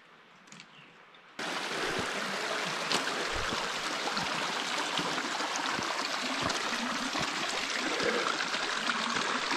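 Small mountain stream running over rocks, a steady rush of water that cuts in abruptly about a second and a half in.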